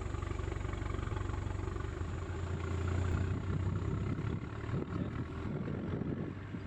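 A vehicle engine idling with a steady low rumble, which grows more uneven about halfway through.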